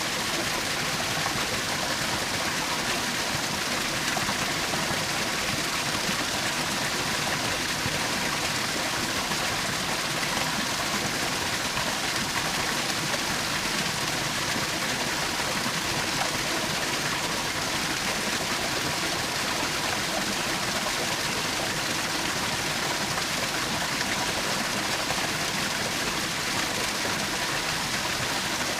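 Small forest waterfall: water splashing and rushing steadily over rocks.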